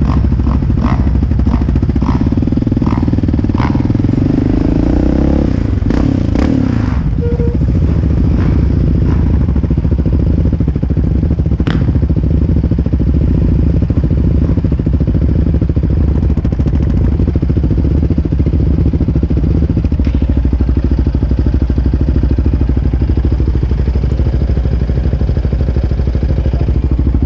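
Sport ATV engine idling steadily close by, with a short louder stretch about four to seven seconds in.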